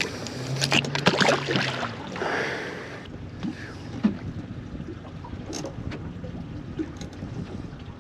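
Small fishing boat on open water: steady wind and water hiss, with clicks and knocks of fishing tackle being handled, loudest in the first three seconds along with a short low hum.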